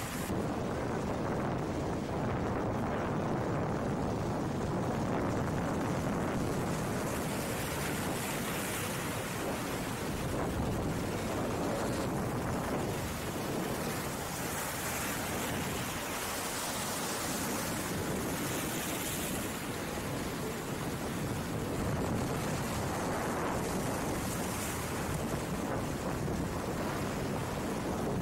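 Rough sea breaking and washing over rocks below a seawall: a steady rush of surf, growing brighter and hissier now and then as waves break.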